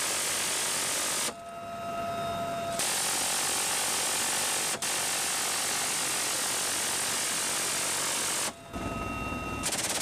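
Helicopter door-mounted minigun firing long sustained bursts, its very high rate of fire blurring into one continuous buzz. The firing stops about a second in and again near the end, and a steady whine is heard in the pauses.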